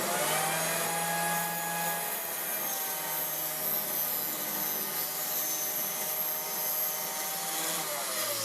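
Workshop power tool's electric motor switched on and spinning up to speed with a whine. It runs steadily, then starts to spin down near the end after it is switched off.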